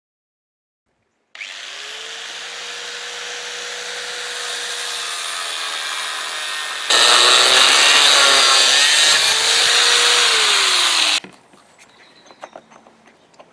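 An angle grinder with a cutting disc runs up and cuts through the steel blade of a railway point to shorten it. About seven seconds in it gets much louder and the motor note drops as the disc bites into the steel. It stops sharply about two seconds before the end.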